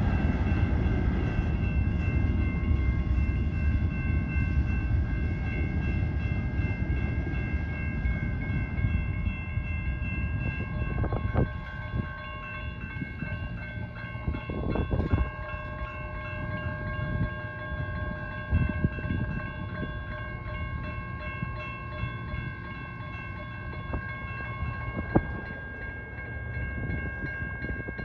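A train rolling past, its low rumble gradually fading, with a steady high-pitched squeal held throughout and a few sharp clanks, about a third of the way in, halfway through and near the end.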